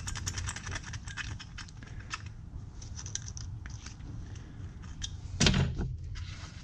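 Metal pick scraping thick fuel varnish off the inside of a carburetor part: a fast run of fine scratching clicks at first, then scattered scrapes, with one louder short noise about five seconds in.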